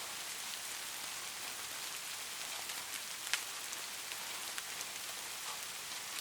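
Steady rain falling, a continuous hiss dotted with the ticks of individual raindrops, one louder drop about three seconds in.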